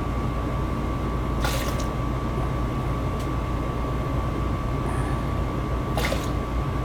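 A running 90% high-efficiency gas furnace: a steady mechanical drone with a thin, steady whine over it. Two brief scuffs sound about a second and a half and six seconds in.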